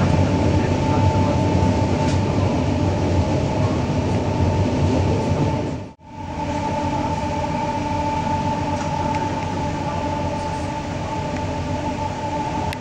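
Steady running noise of a passenger train heard from inside the coach, with a constant whine over the rumble of the wheels on the rails. The sound drops out abruptly about halfway through and picks up again straight away.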